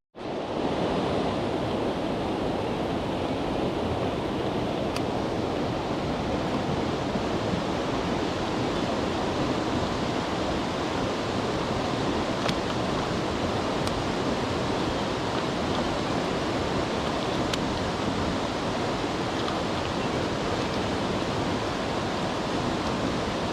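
Mountain stream water rushing steadily, an even hiss of flowing water with a few faint ticks over it.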